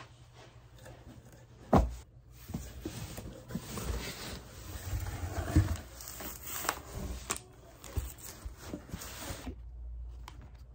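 Cardboard shipping box being opened and unpacked by hand: a sharp knock about two seconds in, then cardboard flaps and paper packaging rustling and scraping with small clicks, stopping shortly before the end.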